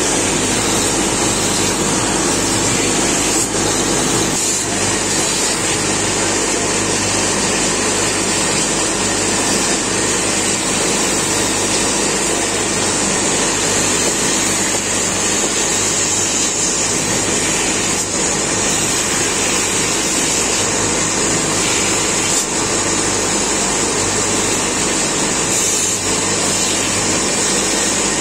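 Wood lathe running with a steady hum while sandpaper is held against the spinning wooden spindle to smooth it.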